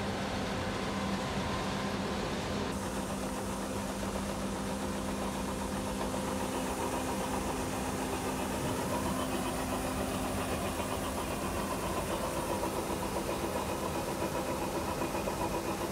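An engine running steadily, with a constant low hum and a fainter steady whine above it; the hiss of the machine gets a little fuller about three seconds in.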